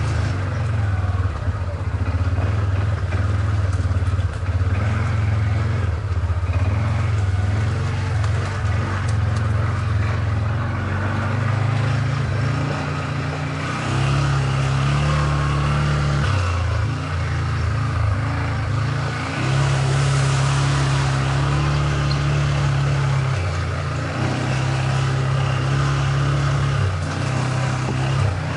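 CFMoto CForce 550 ATV's single-cylinder engine running while riding. Its note rises and falls in stretches as the throttle is opened and eased, about halfway through and again near the end.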